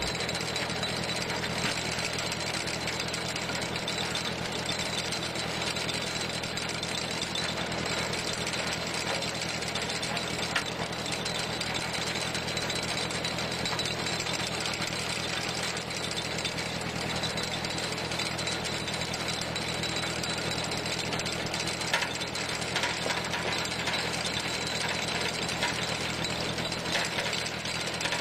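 Tractor engine running steadily, driving a PTO-powered cone screw log splitter through a chain-and-sprocket reduction as the screw bores into a log. A few sharp cracks come through as the wood splits.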